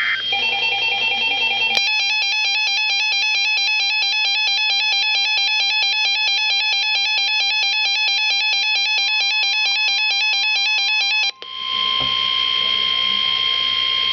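Emergency alert alarm for a severe thunderstorm warning. An electronic alarm starts about two seconds in and beeps in a fast, even pulse, then cuts off suddenly about nine seconds later. A steady single warning tone begins a couple of seconds before the beeping stops and carries on after it.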